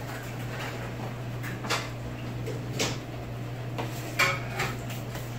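A plate being handled and set down on a bar counter: three light clinks, the last and loudest ringing briefly. A steady low hum runs underneath.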